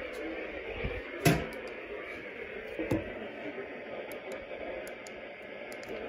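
Weather radio's small speaker playing the NOAA Weather Radio broadcast of the required weekly test, faint and steady. A sharp knock about a second in is louder than everything else, with lighter thumps and faint ticks after it.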